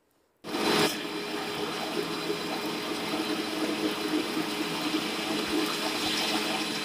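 Electric mixer grinder switched on about half a second in, its motor running steadily as it wet-grinds grated coconut, soaked raw rice and water in a steel jar.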